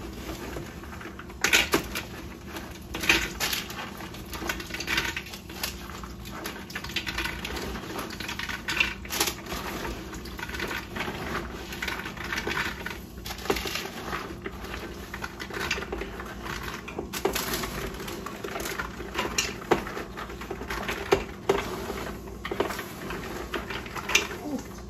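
Raw green peanuts in their shells clattering into the inner pot of an electric pressure cooker as they are pushed off a metal baking tray by hand: a continuous, uneven patter of small clicks and knocks.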